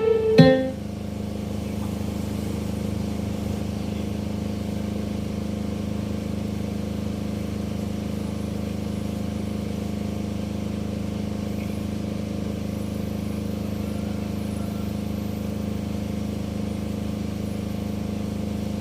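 Steady low electrical hum from a sound system with a 15-inch subwoofer, playing with no music: a constant drone whose pitch never changes.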